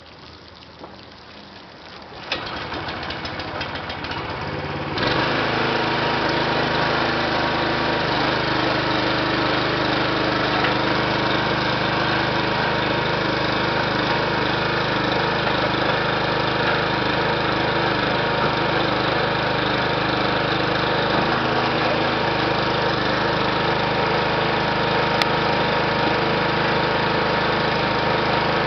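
Small gasoline engine on a homemade belt machine starts about two seconds in and runs steadily from about five seconds on. Before it picks up, a garden hose spraying water onto the belt is faintly heard.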